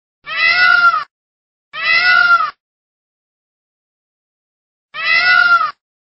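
Indian peafowl (peacock) calling: three cat-like calls, each just under a second long and rising then falling in pitch. The first two come close together, and the third follows after a pause of about two seconds.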